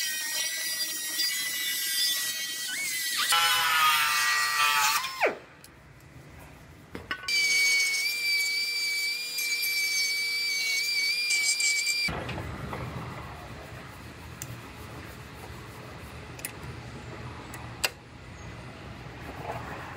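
A high-speed power tool cutting the steel frame rail runs with a steady high whine, then winds down, falling in pitch, about five seconds in. It runs again from about seven seconds and stops abruptly near twelve seconds. A low, steady hum with a few faint clicks follows.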